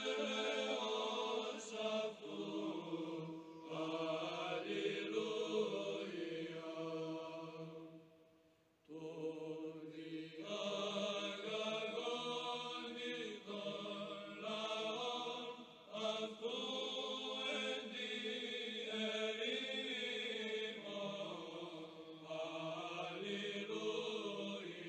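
Sung religious chant: a melody over a steady held low drone note, with a brief pause about eight seconds in.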